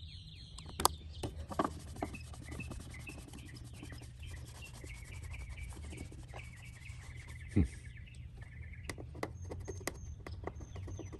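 Scattered sharp clicks and scrapes, with a sharper knock past halfway, as old rusty magnets are worked loose from a van's fuel-door opening. A bird chirps a rapid series of notes in the background.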